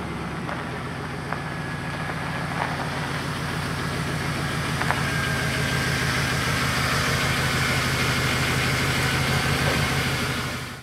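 Vehicle engine idling steadily, slowly growing a little louder, with a few faint clicks.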